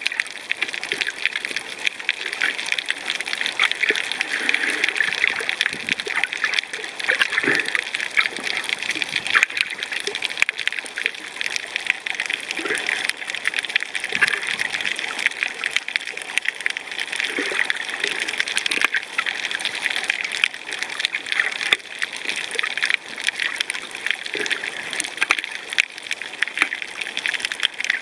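Underwater sound over a coral reef: a steady, dense crackle of tiny clicks, with swells of bubbling, gurgling water every few seconds.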